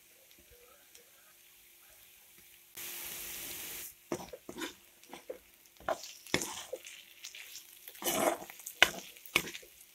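Spatula stirring and scraping a dry banana-flower and goat-fat fry around an iron karahi, in irregular strokes that begin about four seconds in and are loudest near the end. Just before the strokes there is a brief steady hiss.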